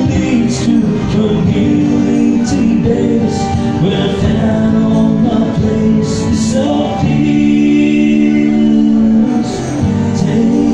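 A man singing live to his own strummed acoustic guitar, with a long held note about seven seconds in.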